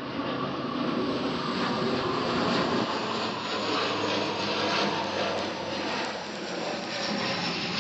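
Steady rain falling, a little heavier than a drizzle.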